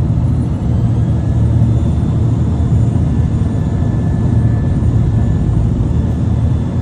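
Turbocharged truck engine running with a steady low rumble and a faint, high turbo whistle above it.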